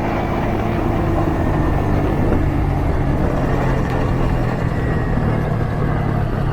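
Motorcycle engine running steadily at cruising speed, with a constant hum under road and wind noise.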